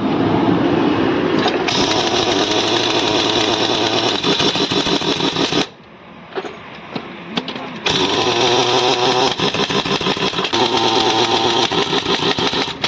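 An engine running steadily, broken off for about two seconds in the middle by a quieter stretch with a few knocks, then running again.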